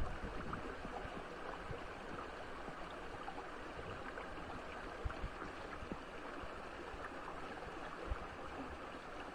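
Shallow stream water running steadily over rocks, with a couple of soft low thumps about five and eight seconds in.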